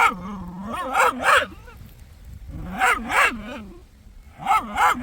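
A puppy barking and yipping in short, high, sharp barks, mostly in pairs about every second and a half.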